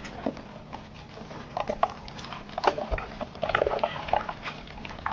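Live crabs and fish flopping and scrabbling as freshly caught seafood is sorted by hand. They make a run of irregular sharp clicks and knocks. A few short, yelp-like animal cries come about a second and a half in and again past three and a half seconds.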